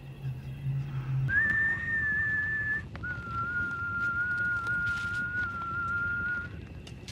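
Someone whistling two long held notes: a higher one for about a second and a half, then a lower one held for about three and a half seconds.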